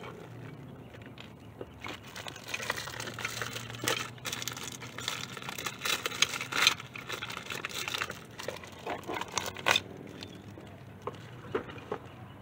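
Brake shoes and parts being handled off camera: rustling with a run of small clicks and knocks, busiest in the middle and loudest about six to seven seconds in.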